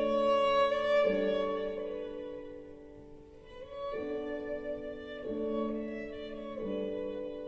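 Violin with bowed strings playing a slow, soft passage of held chords that change about every second and a half, played back from a vinyl record on a hi-fi system.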